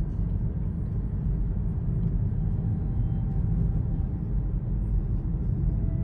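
Steady low rumble of a car driving along a highway, heard inside the cabin: tyre and engine noise.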